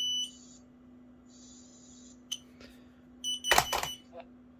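Kidde Trusense smoke alarm's piezo horn sounding a high beep that cuts off just after the start, then another short beep a little after three seconds in, followed at once by a loud knock. A faint steady low hum runs underneath, with a few small clicks.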